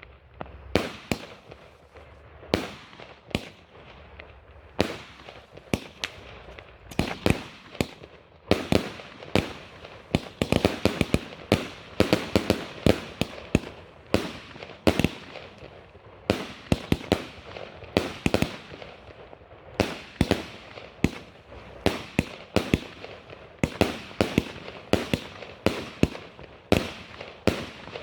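F2 consumer firework battery firing: a long irregular series of sharp bangs, each with a short decaying tail, coming fastest about a third of the way in.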